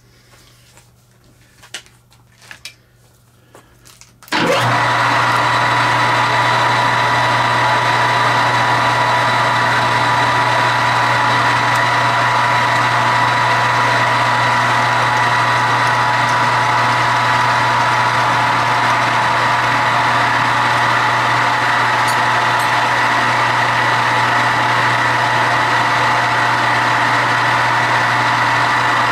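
A few light clicks and knocks, then about four seconds in a metal lathe starts abruptly and runs steadily with a constant whine.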